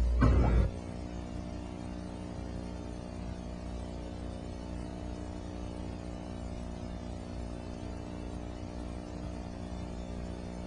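Steady electrical hum made of many even, unchanging tones, after a louder low rumble that cuts off sharply under a second in.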